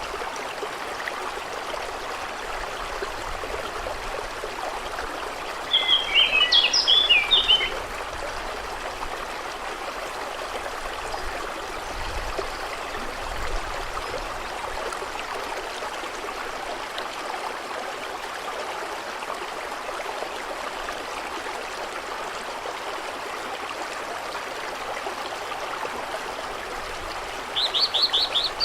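Stream flowing steadily, with a bird giving a quick burst of chirps about six seconds in and starting again near the end.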